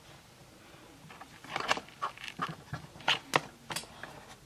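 Clicks and taps of hands handling a Canon EOS 700D DSLR on a tripod as its vari-angle screen is folded shut, close on the camera's own microphone. The handling noise is a quick, uneven run of about seven sharp clicks, starting about a second and a half in.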